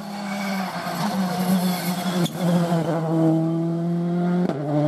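Citroën C3 Rally2 rally car's turbocharged four-cylinder engine at high revs as it approaches and passes, its pitch stepping at each gear change, with a brief crack at a shift about two seconds in.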